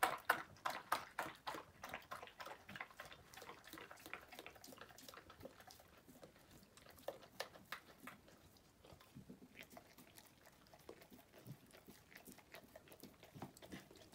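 Golden retriever eating from a small dish, licking and chewing with a quick run of wet clicks, loudest in the first couple of seconds and then fainter and sparser.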